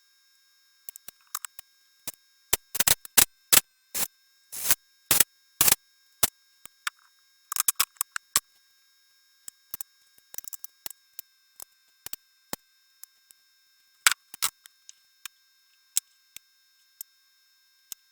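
Irregular sharp clicks and knocks, in clusters, with the loudest about three to six seconds in and again around fourteen seconds. The likeliest source is tools and parts being handled during engine reassembly.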